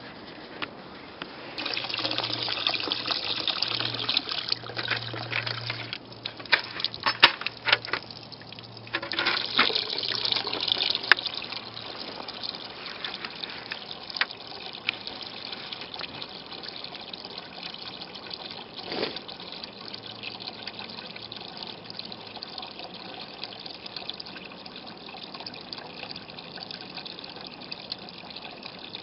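Water running hard into a container, filling it, with a few sharp knocks about seven seconds in; after about twelve seconds the flow goes on more quietly and steadily.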